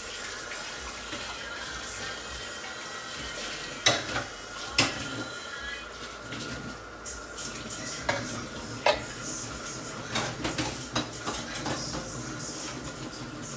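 Cookware and utensils clinking and knocking as they are handled: two sharp knocks about four and five seconds in, two more around eight and nine seconds, and a quick run of clinks near the end. Under them is a steady hiss.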